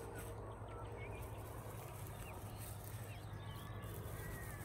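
Birds chirping faintly outdoors, short scattered chirps and whistles over a steady low rumble.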